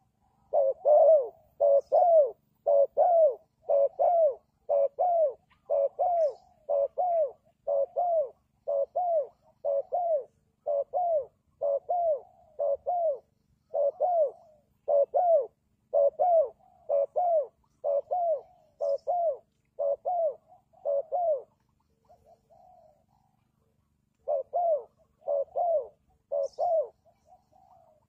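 Spotted dove cooing in a long even series of low coos, about one a second, while bowing in its territorial display. The series breaks off for a few seconds, then three more coos follow near the end.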